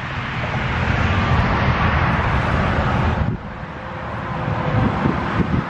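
Wind buffeting the microphone, a loud rushing rumble that drops off suddenly partway through and then builds again.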